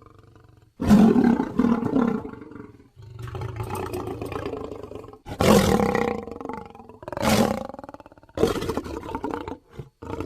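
A string of lion roars and growls, about five in a row with short breaks between them; the loudest comes about a second in and again near the middle.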